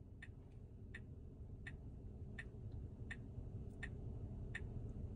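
A Tesla's turn-signal indicator ticking at an even pace, about three ticks every two seconds, over a low steady hum in the car's cabin.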